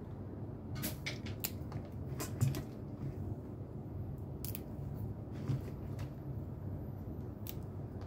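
Scattered, irregular light clicks and taps from handling and cutting chili peppers by hand, over a steady low hum.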